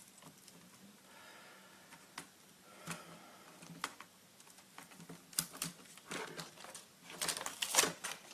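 Hands working on a netbook LCD screen and pulling off a piece of adhesive tape: scattered small clicks and taps, with a denser run of crackly clicks near the end.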